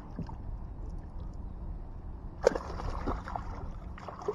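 A hooked fish splashing and thrashing at the surface beside a kayak: a sharp splash about two and a half seconds in, a few smaller ones after it, and another near the end, over a steady low rumble of wind and water on the microphone.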